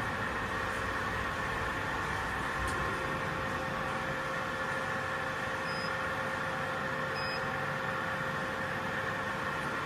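Stitch welding machine running with a steady hum made of several held tones over a noisy background. Two short high beeps sound in the middle.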